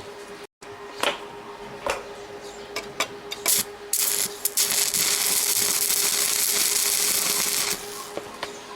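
Electric welding arc on a machete blade: a run of sharp ticks and taps, then the arc hissing and crackling steadily for about four seconds before it stops. A faint steady hum runs underneath.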